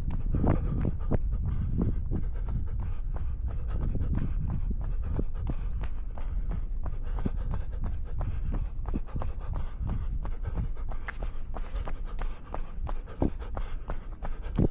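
A runner breathing hard and steadily, with a regular beat of footsteps on snow.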